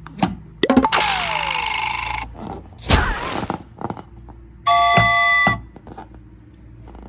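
A string of cartoon-style sound effects: a noisy swish with a slowly falling tone, a sharp hit, then a steady electronic chime-like tone held for almost a second, with a few small knocks between.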